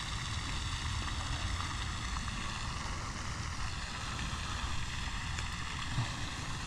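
Wind rumbling on the microphone over a steady hiss of splashing water from a pond fountain, with a small knock about six seconds in.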